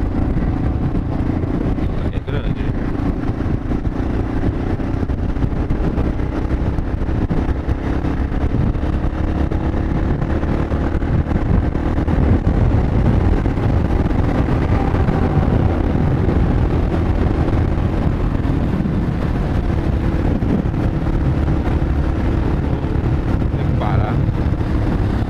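Yamaha XT 600E's single-cylinder four-stroke engine running steadily at road speed, under heavy wind rush on the helmet microphone.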